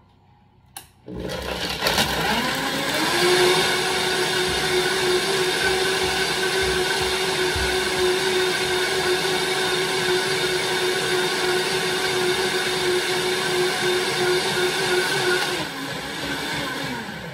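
Vitamix blender blending ice, mango and coconut milk. The motor comes on about a second in and winds up in pitch over a couple of seconds to a loud, steady high-speed whir, then slows and winds down near the end.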